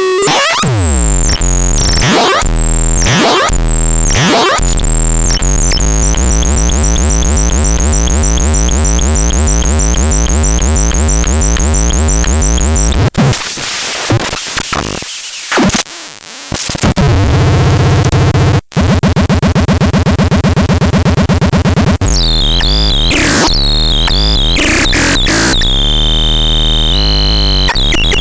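Electronic synthesizer playing harsh, buzzy, noisy tones. It opens with falling and rising pitch sweeps, then holds a dense pulsing drone. There is a quieter dip about halfway through, then a loud buzz returns, followed by more sweeps and short pitched blips near the end.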